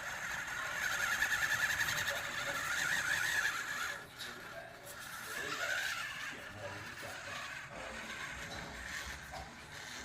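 Axial SCX24 1/24-scale RC crawler's small brushed motor and gear train whining as it crawls slowly on an Injora MB100 brushed ESC. The whine is louder for the first few seconds, then drops and rises unevenly with the throttle.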